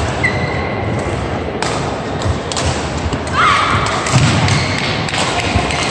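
Badminton play in a busy sports hall: sharp racket hits on the shuttlecock and players' feet thudding on the court, with a few short high squeaks.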